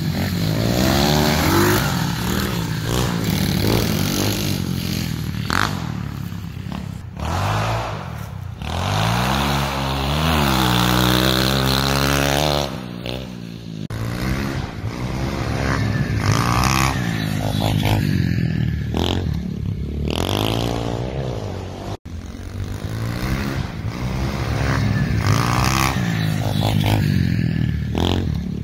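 Small dirt bike engine running and revving up and down, its pitch rising and falling with the throttle. The sound cuts out for an instant about two-thirds of the way through.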